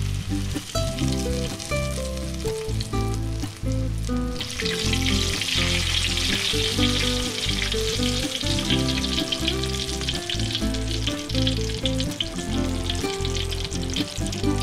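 Battered prawns deep-frying in hot oil in a wok: a steady crackling sizzle that gets louder about four seconds in. Light background music plays underneath.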